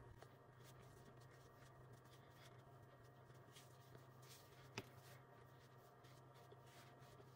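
Near silence: faint, soft rubbing and handling noises, with one sharp click about five seconds in.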